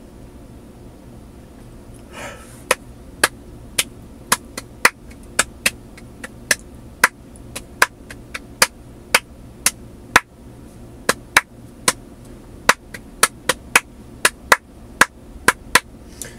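A long run of sharp, short clicks starting about two seconds in, about two a second and evenly spaced at first, then uneven with some coming in quick pairs. A brief rushing sound comes just before the clicks start and again as they stop.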